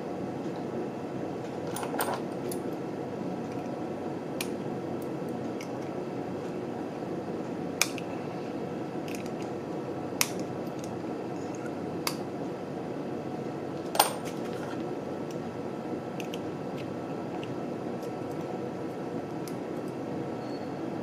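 Sharp metallic clicks and ticks of needle-nose pliers gripping and bending the tabs of a thin tin-plate toy part, about half a dozen spread out every couple of seconds, the loudest about two-thirds of the way through. A steady background hum runs under them.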